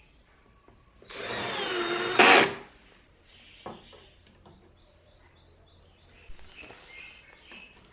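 Power drill running for about a second and a half, its pitch wavering, ending in a sharp loud burst, followed by faint clicks and handling sounds.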